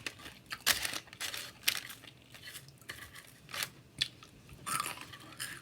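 Close-up chewing and crunching of cream-cheese poppers coated in crushed Hot Cheetos: a run of irregular crisp crunches through the whole stretch.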